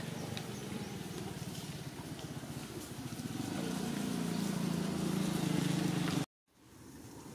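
Low engine hum with a fine even pulse, growing louder over the second half, then cutting off suddenly near the end; a fainter hiss follows.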